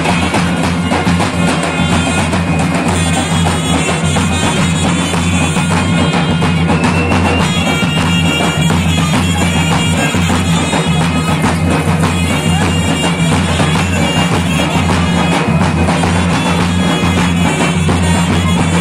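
Folk dance music: a bagpipe melody over a steady drone, with a drum beat underneath.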